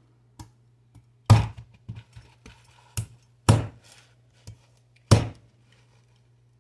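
Heavy cleaver chopping into the top of a trimmed young coconut on a wooden cutting board: four hard strikes with lighter knocks between them.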